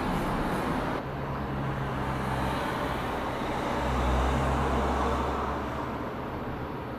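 Jet airliner engine noise, a steady rumble that swells to a peak midway and then fades as the aircraft passes.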